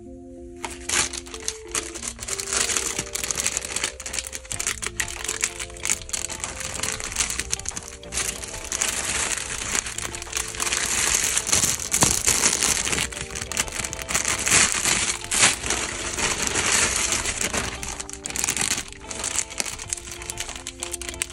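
Thin plastic packaging crinkling and crumpling as hands unwrap and handle it, starting about a second in, with soft background music underneath.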